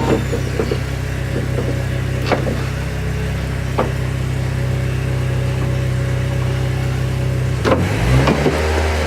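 A steady low mechanical hum, like a shop motor running, with a few sharp metallic clicks from strut parts being handled. Near the end the hum shifts in pitch.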